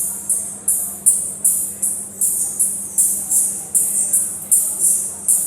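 Music played through a sound system's loudspeakers, heard mostly as a high-pitched, hiss-like percussion pattern like a shaker or tambourine, about three strokes a second, with a faint steady hum underneath.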